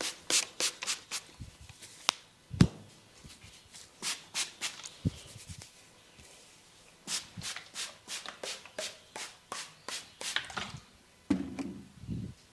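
Hands massaging a person's head and hair, making a run of sharp, irregular crackles and taps, with a duller rubbing sound near the end.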